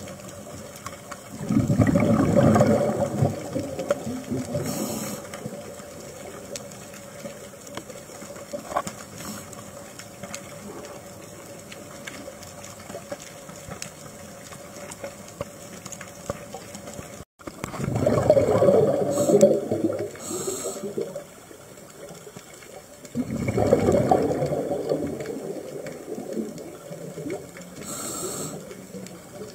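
Scuba diver breathing through a regulator underwater: three loud gurgling bursts of exhaled bubbles, the first about two seconds in and the other two in the second half, with a quieter steady hiss between.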